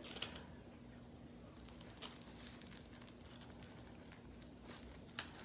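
Faint rustling of cotton fabric being handled and a few small ticks as pins are pulled from a pincushion and pushed through the layers, over a faint steady hum.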